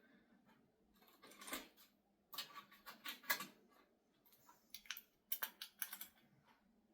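Metal parts of a grinder chop-saw stand clinking and scraping as they are handled and fitted during assembly, in scattered short clicks and rattles, mostly about one and a half seconds in, between two and a half and three and a half seconds in, and again near the end.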